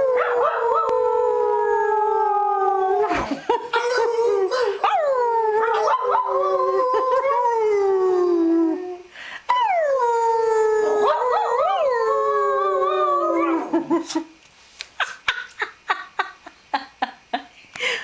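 Shiba Inu howling: three long howls, each starting high and sliding down in pitch, then a quick run of short, quieter yips near the end.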